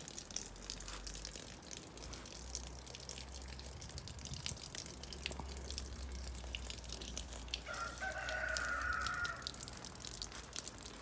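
Rain falling and dripping in many small taps, and a rooster crows once, about eight seconds in, for a second and a half.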